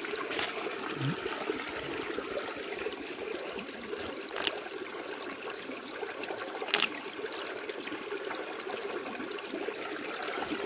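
Mountain stream water running steadily over granite rocks, with three brief sharp sounds about half a second, four and a half and seven seconds in, the last the loudest.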